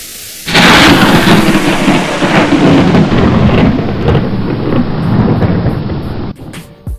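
Thunder sound effect: a sudden loud thunderclap about half a second in, then a rolling rumble that cuts off abruptly near the end.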